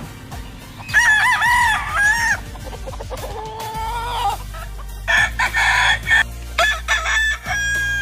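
Rooster crowing, a loud crow about a second in, followed by more crowing and short calls.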